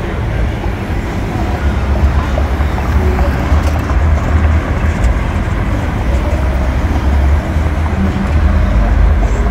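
Road traffic at a street intersection: a steady wash of passing cars with a heavy low rumble.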